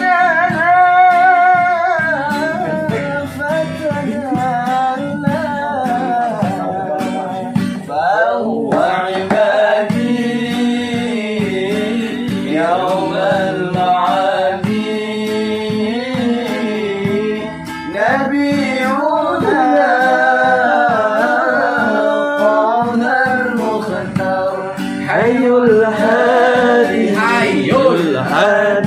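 A man singing a devotional sholawat melody in long, wavering notes, accompanied by guitar.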